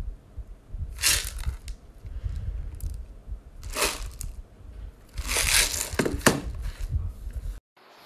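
Plastic wrapping on a charcoal dehumidifier box crinkling as the box is handled, in three bursts: about a second in, around four seconds, and a longer one between five and six seconds, over low rumbling handling noise. The sound cuts off just before the end.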